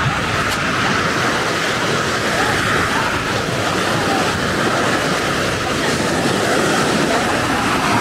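Ocean surf breaking and washing onto a sandy beach: a steady, loud rush of waves.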